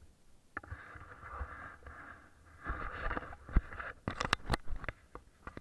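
Bicycle on a rough field track: a scraping hiss from about half a second in lasts nearly three seconds, then comes a run of sharp clicks and knocks as the bike comes to a stop.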